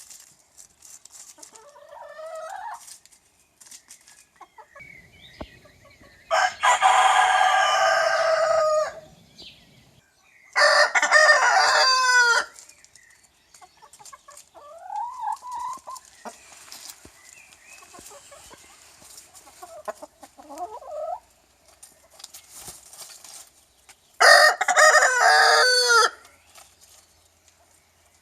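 Rooster crowing: three long crows, about six seconds in, again about eleven seconds in, and once more near the end. Fainter, shorter chicken calls sound between them.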